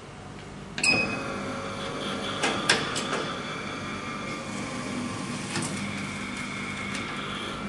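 HJ-50A automatic document binding machine, which drills the stack and binds it with plastic tube, working through a bind cycle: a sharp click about a second in, a few knocks around three seconds in, then its motor running steadily with a high whine.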